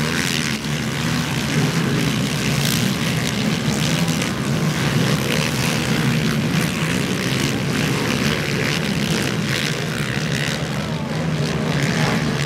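Engines of a pack of racing quad bikes running together in a dense, steady buzz.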